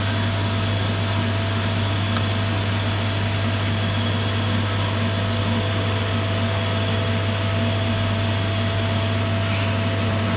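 Enclosed CNC machining centre running a program, with coolant jets spraying over the workpiece behind its glass door: a steady mechanical hum with a constant low drone and a few unchanging tones.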